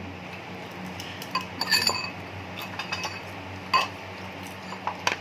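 Tableware being handled: plates, bowls and utensils clinking against each other in a few short, separate knocks, over a steady low hum.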